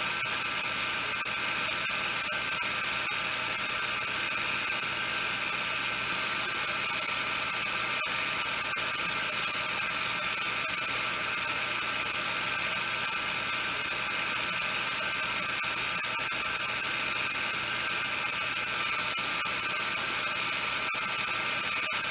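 A steady, unchanging mechanical whir with hiss, like a small motor running, with a few faint clicks.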